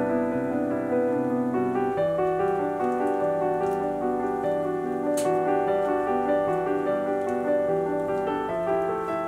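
Soft background piano music: sustained chords that change about two seconds in and again near the end.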